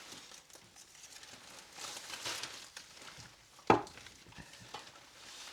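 Left-behind packaging and objects rustling and crinkling as they are handled and sorted for the bin, with one sharp knock about three and a half seconds in and a couple of faint clicks after it.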